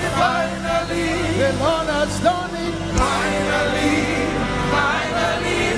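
Gospel praise music: sung vocal lines gliding over sustained band chords, with a sharp drum hit about three seconds in.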